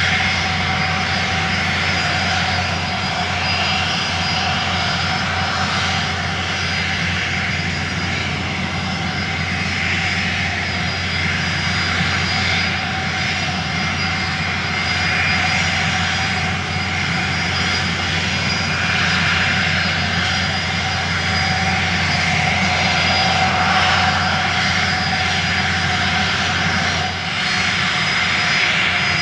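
A small motor running with a steady, unchanging hum under wind rush, from something moving steadily along.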